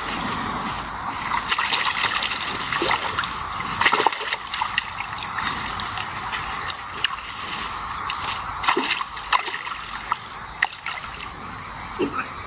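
Water splashing and sloshing as a keepnet holding barbel is worked in shallow river water to let the fish out, with repeated short sharp splashes over a steady wash of water.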